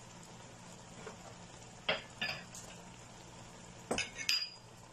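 Wooden spatula stirring cubed apples in a pan of sizzling caramel as the apple juice cooks off. Four short sharp knocks of the spatula against the pan come in two pairs, about two seconds in and near the end, over a faint steady sizzle.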